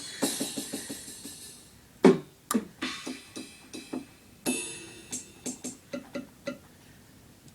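Drum sounds played on an electronic keyboard: a fading cymbal wash, then a string of short separate hits and notes, one about two seconds in dropping in pitch; they stop about a second before the end.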